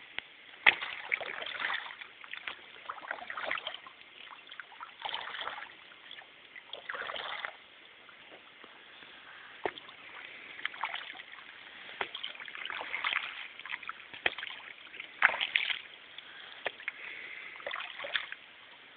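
Canoe paddling on calm water: irregular splashes and sloshes from the paddle strokes every second or two, with a few sharp knocks.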